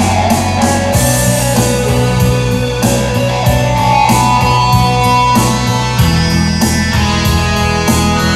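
Live band playing an instrumental passage with no singing: electric guitar and keyboards over a steady bass line and drums. The bass note shifts about a second in and again about six seconds in.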